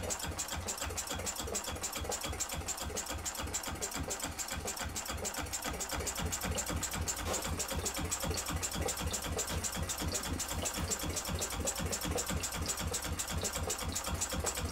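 Small single-cylinder model true diesel engine (20 mm bore, 40 mm stroke) running steadily with a fast, even mechanical beat, just after a cold hand-start. Its exhaust is piped away through a hose, so mostly the engine's own clatter is heard.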